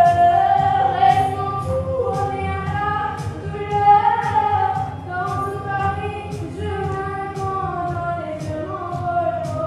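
A woman singing a held, gliding melody into a microphone over backing music with a steady beat of about two strokes a second.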